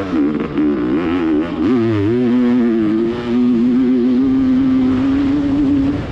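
Two-stroke motocross bike engine heard from the rider's helmet, its pitch rising and falling through the first turns, then held at a steady high rev for about three seconds before the throttle is backed off near the end.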